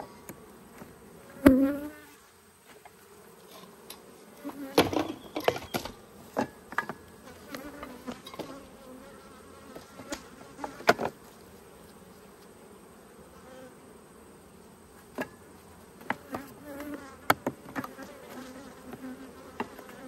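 Honeybees buzzing steadily over an open hive, broken by sharp wooden knocks and clicks as frames are set into the box and levered with a metal hive tool; the loudest knocks come about a second and a half in and about eleven seconds in.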